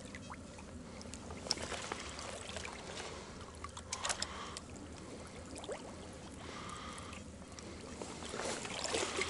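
Soft water sloshing with a few faint splashes from wading slowly through a shallow, silt-bottomed pond.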